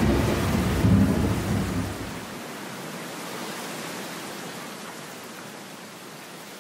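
A thunderclap rumbling and dying away over rain. The rumble swells once more about a second in, then fades after about two seconds into a steady hiss of rain.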